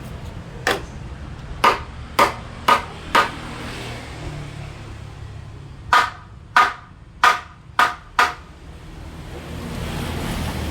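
Hammer blows on wood while a wooden door frame is being assembled: two runs of five sharp strikes about half a second apart, the first starting just under a second in and the second about six seconds in, over a steady low hum.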